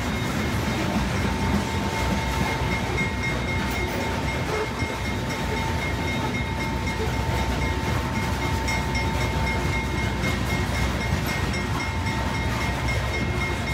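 Loaded coal hopper cars rolling past close by: a steady rumble of steel wheels on rail, with a thin steady squeal running through it.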